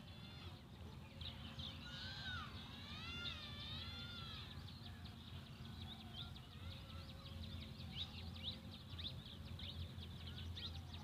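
Faint birds chirping in the background, many short high chirps throughout, with a longer wavering call from about two to four and a half seconds in, over a low steady hum.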